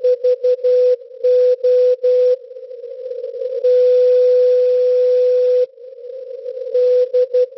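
Morse code (CW) from SVO Olympia Radio, the Greek maritime coastal station, received on 8424 kHz shortwave. A single steady beep is keyed in short and long elements, with one unbroken tone of about two seconds midway. Hiss of band noise fills the gaps. This is the station's regularly repeated call-sign identifier and channel marker.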